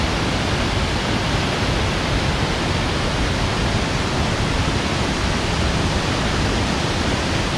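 Bridal Veil Falls, a tall mountain waterfall, heard from near its foot as a steady, even rush of falling water.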